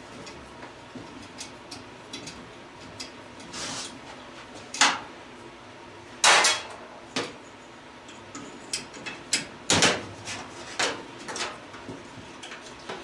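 Metal parts of an old gas stove clanking and knocking as they are worked loose and handled, a series of irregular sharp clanks with three louder ones about five, six and ten seconds in.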